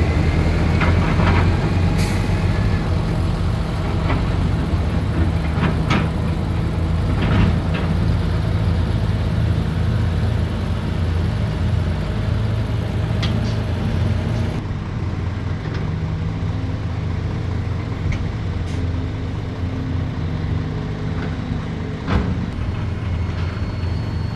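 Heavy diesel construction machinery (large excavators and dump trucks) running steadily with a deep engine drone. Occasional sharp metallic clanks and knocks break through it.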